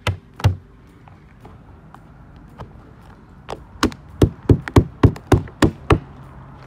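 Kitchen knife stabbing and chopping into a slipper lobster's shell against a painted wooden table. Two sharp knocks come at the start, then a quick run of about nine, roughly three a second, in the second half.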